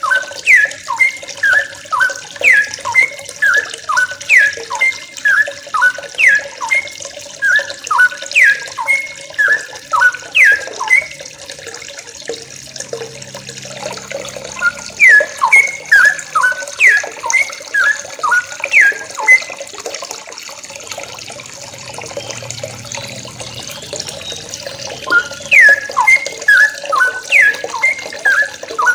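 A flock of yellow-vented bulbuls calling together: rapid, bubbly runs of short, sharply down-slurred notes, thinning out twice to a few scattered calls before picking up again. A steady hiss runs underneath.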